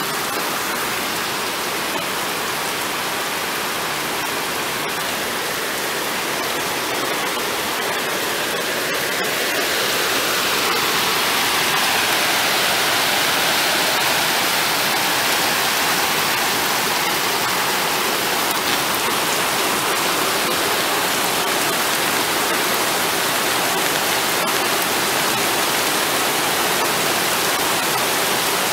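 Heavy rain pouring down, a steady dense hiss that grows a little louder about ten seconds in.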